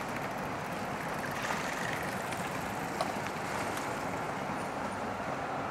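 City street ambience: a steady wash of traffic and street noise with no single vehicle standing out, and one sharp click about three seconds in.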